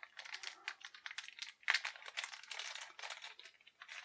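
Small clear plastic bag crinkling and crackling in the fingers as it is slit open with a hobby knife, in quick irregular crackles.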